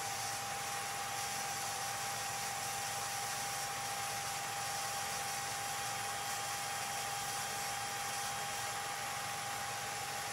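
8mm film projector running: a steady mechanical whir and hiss with a constant high-pitched tone and a low hum underneath, unchanging throughout.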